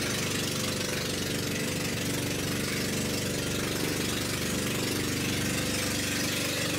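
Outrigger boat's inboard engine running steadily while under way, a constant drone with the wash of water along the hull.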